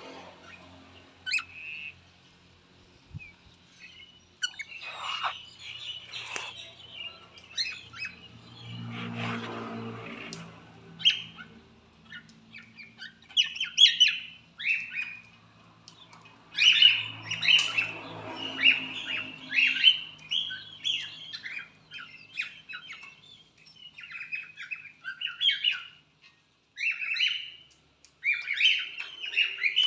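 Pet cockatiels chirping and squawking in rapid series of short calls, sparse at first and then thick and almost continuous through the second half.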